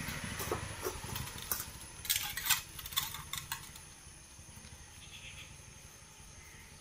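Labrador puppies knocking about steel feeding bowls on a tiled floor: scattered clicks and clatters, thickest in the first three and a half seconds and loudest a little after two seconds in, then dying down.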